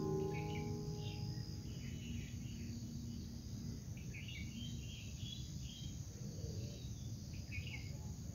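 Faint outdoor ambience: small birds chirping in scattered short bursts, over a low rumble of wind and handling noise.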